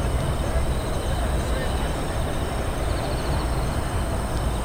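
Steady outdoor background noise: a low rumble with a faint murmur of indistinct voices.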